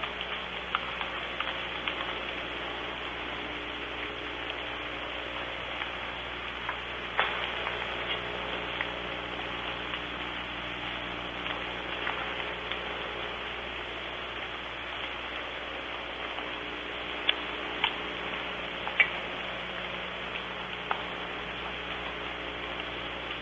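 Soft rain falling: a steady hiss with scattered drops ticking, and a few sharper ticks, three of them close together about three-quarters of the way in. A faint low steady hum lies underneath.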